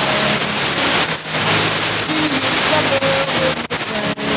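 Loud static hiss over the TV sound of a failing microwave studio-to-transmitter link, with faint music notes buried underneath. The hiss breaks off in brief dropouts near the end.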